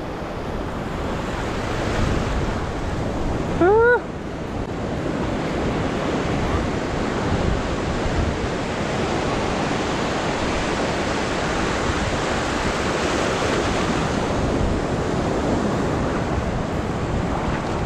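Ocean surf washing in over a shallow sandy beach: a steady rush of breaking waves and foam, with wind buffeting the microphone. A short, loud rising call cuts in about four seconds in.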